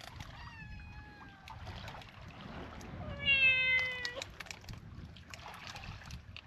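Cat meowing twice: a higher call about half a second in, then a louder, lower call falling slightly in pitch about three seconds in.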